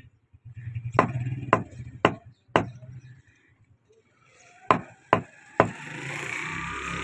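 Cleaver chopping beef on a wooden chopping block: seven sharp strikes, four about half a second apart, then three more after a short pause.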